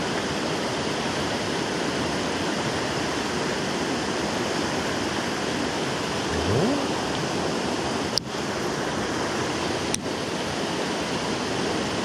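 Rain-swollen mountain stream rushing steadily over shallow rocky riffles. A short rising tone comes about six and a half seconds in, and two sharp clicks about two seconds apart come near the end.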